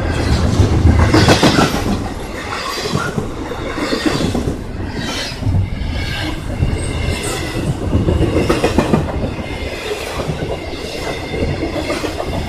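Norfolk Southern intermodal container train rolling past fast, its wheels clacking over rail joints in an uneven rhythm over a steady rumble, with a high thin wheel squeal.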